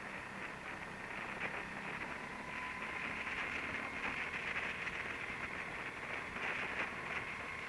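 Go-kart driving at speed on an indoor track, heard from its onboard camera: a steady rushing drone with a thin whine in it, with no sharp events.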